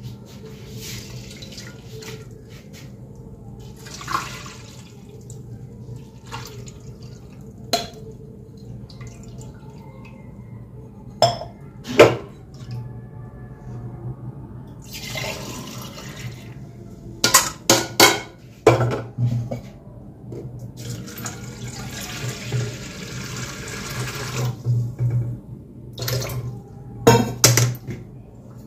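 Liquid poured and swirled into a steel bowl, in two rushing stretches, with sharp clinks and knocks of steel utensils in between.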